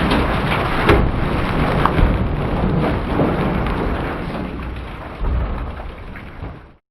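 Rumbling, thunder-like booms over a dense rain-like hiss, fading over several seconds and cutting off abruptly near the end.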